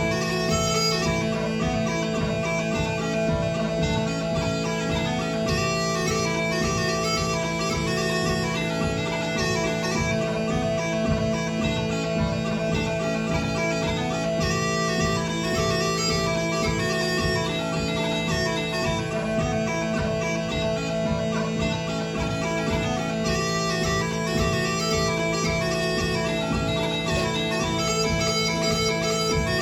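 Smallpipes playing a tune: a quick, ornamented melody over steady, unbroken drones.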